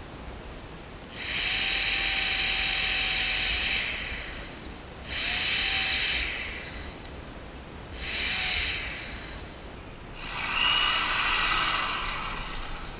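Corded electric drill boring through a white PVC cap, run in four spurts: a long one of about three seconds, then three shorter ones. Each starts abruptly and winds down as the trigger is let go.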